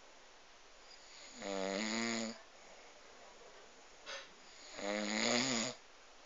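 Loud snoring: two long, pitched snores about three seconds apart, each lasting about a second, with a short faint sound just before the second.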